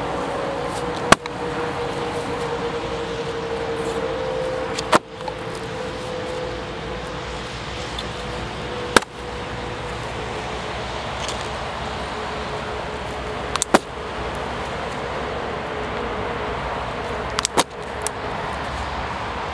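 Paint thrown from cups slapping onto a canvas lying on grass: five sharp hits a few seconds apart, the last a quick double. Under them runs steady background noise with a hum that slowly drops in pitch.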